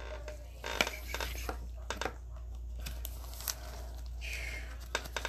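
Gloved hands handling a trading card in a clear plastic holder: scattered crinkling and light plastic clicks, over a steady low hum.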